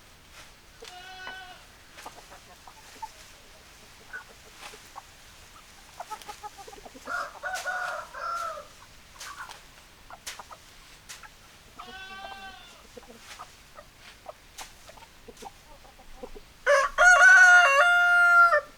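Chickens: hens give short clucking calls now and then, and a rooster crows loudly once near the end in a call about two seconds long.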